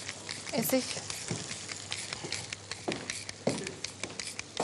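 Fish frying in a pan, the fat sizzling steadily with many fine crackles.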